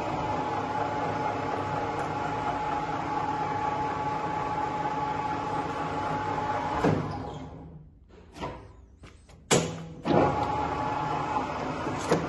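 Colchester Student 1800 lathe running with a steady gear whine. About seven seconds in there is a clunk and the machine runs down to a stop, a few clicks and a sharp knock follow, and about ten seconds in it starts up again and runs steadily, with another clunk near the end.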